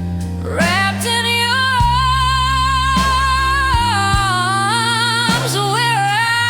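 Soul-blues song: a singer holds a long wordless line with vibrato and slides over a bass and band accompaniment.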